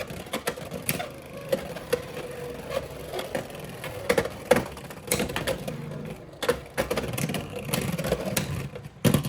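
Spinning Beyblade X tops clashing in a plastic stadium: sharp plastic clicks and clacks of hits at irregular intervals over a faint steady spinning hum.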